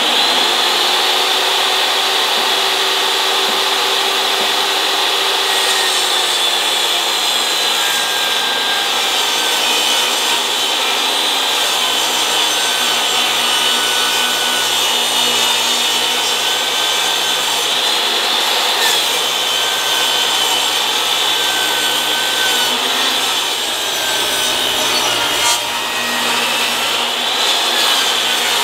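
Portable jobsite table saw running and ripping a 2x10 board lengthwise into 3-inch strips: a steady, loud motor whine with the blade cutting through the wood.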